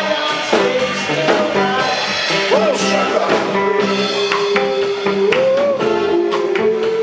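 Live band playing an African dance medley: electric guitar and drum kit, with singing in long held, wavering notes.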